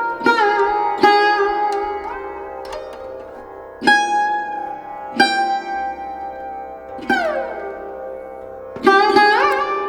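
Background music: a solo plucked string instrument, sitar-like, playing slow single notes a second or more apart that ring and fade, a few sliding down or up in pitch.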